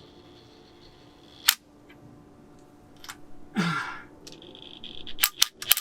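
Sharp metallic clicks and knocks from fitting a wheel's nuts onto the hub, with a brief high whine just before a quick run of clicks near the end.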